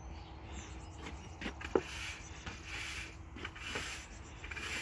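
Push broom with stiff bristles sweeping sand across a brick-paver patio, its strokes scraping over the pavers in repeated swishes about one to two a second. A sharp click comes a little under two seconds in.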